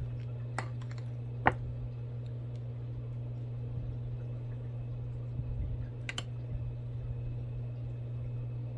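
A few sharp clicks and taps of utensils and dishes being handled, the loudest about a second and a half in, over a steady low hum.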